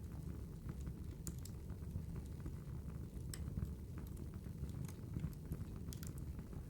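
Firewood fire crackling: a steady low rumble with scattered sharp pops and snaps.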